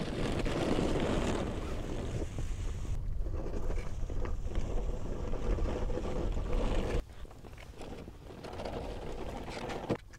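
Wind buffeting the microphone outdoors: a steady low rumble with hiss. It drops abruptly to a softer level about seven seconds in.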